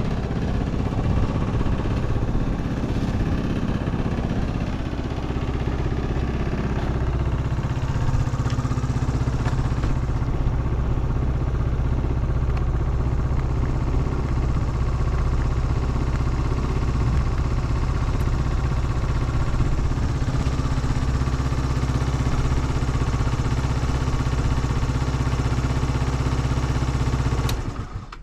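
Yamaha Cygnus X SR scooter's 125 cc single-cylinder four-stroke engine idling steadily, then switched off near the end. It runs with no abnormal noise.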